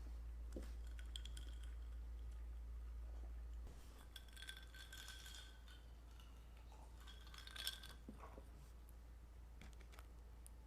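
Light clinks of tableware, two of them ringing briefly like glass, with small clicks between and a steady low hum that drops a little about four seconds in.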